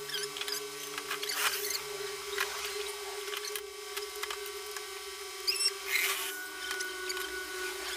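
Workshop sounds: a steady machine hum underneath, with light knocks and scrapes of boards and tools being handled, and a few short high squeaks about five and a half seconds in.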